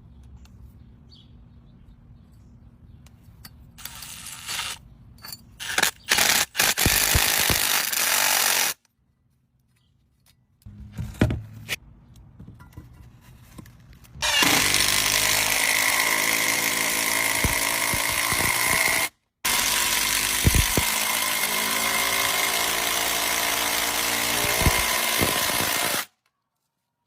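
Electric power tool running: several short runs, then a long steady run with a high motor whine. The sound cuts off abruptly in places.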